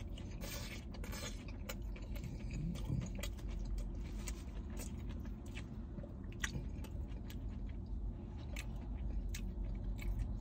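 A person biting into and chewing a cheeseburger slider, with irregular small wet mouth clicks over a steady low hum.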